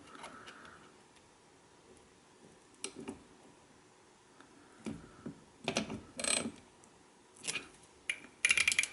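Intermittent metallic clicks and clanks from hand work on a small lawnmower engine's valve gear, with a quick run of ratchet-like clicks near the end.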